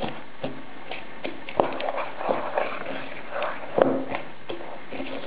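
A fork stirring dry cereal, flour and sugar in a bowl: a dry, crunchy rustle with irregular clicks and scrapes of the fork against the bowl. The sharpest knocks come about a second and a half in and again near four seconds.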